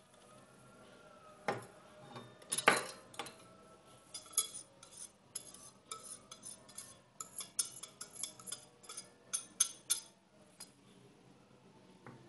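Wire whisk stirring dry flour and tapioca starch in a glass mixing bowl, its wires clinking against the glass in quick, uneven taps. Before that, a small glass dish knocks twice against the rim of the bowl as it is emptied.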